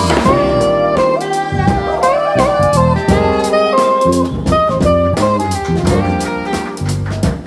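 Instrumental music: a jazz-style passage with a lead melody over bass and a drum kit keeping a steady beat.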